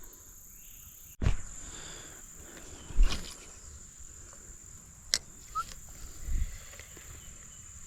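Steady high-pitched insect chirring from crickets, with a few short knocks and thumps scattered through it, the loudest about three seconds in.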